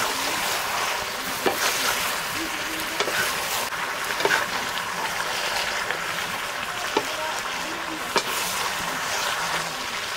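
Pork pieces sizzling in a blackened iron wok, a steady high hiss, with scattered sharp clicks as a ladle stirs them.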